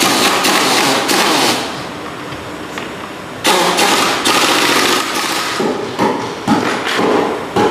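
Pneumatic impact wrench hammering on the top-mount nut of an Audi A6 C6 front air strut, in bursts: one run of about a second and a half at the start, another of about two seconds from around three and a half seconds in, then short blips near the end.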